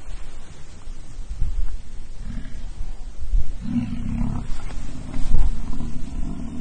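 American bison bulls fighting: a deep bellow from a rutting bull about two seconds in, then a long, loud bellow from the middle on, over low rumbling.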